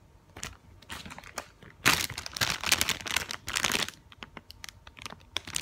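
Plastic squishy packaging crinkling as it is handled: a few faint rustles, then a loud, dense run of crinkling about two seconds in that eases off after a couple of seconds.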